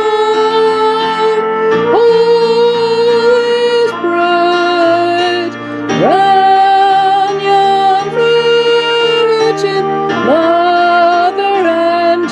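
Music: a slow melody of long held notes, several entered with an upward slide, over steady low sustained accompaniment notes.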